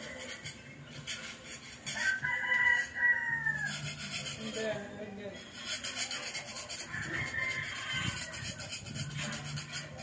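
A rooster crows loudly in one long call about two seconds in, and a fainter crow follows about seven seconds in. Under the crows, a hand scraper rasps in repeated strokes as it scrapes flaking paint off a wall.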